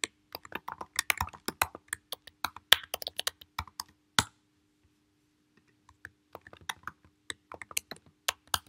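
Fast typing on a computer keyboard: a run of keystrokes of about four seconds, a pause of about a second and a half, then a second run, over a faint steady hum.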